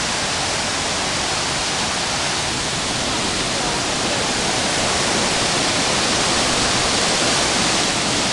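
Fast-flowing mountain creek rushing, a dense steady roar of water that grows a little louder about halfway through.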